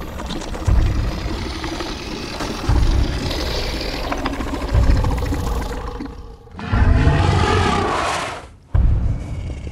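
Tyrannosaurus rex sound effect: heavy low thuds about every two seconds under a rumbling growl, then a loud roar about seven seconds in that lasts about two seconds and cuts off sharply.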